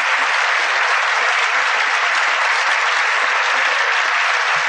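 Audience applauding: steady, dense clapping with no break.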